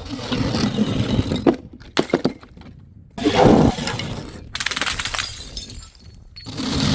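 Glass shattering: glass vessels smashed in a series of crashes with crunching and tinkling shards. The sound stops and restarts abruptly several times.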